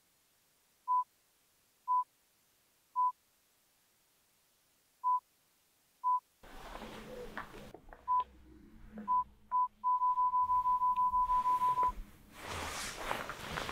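Mobile phone keypad beeps as numbers are keyed: short beeps all at one high pitch, roughly one a second with a couple of gaps, then a fast string of the same beep for about two seconds. Rustling and handling noise comes in about halfway through and grows louder near the end.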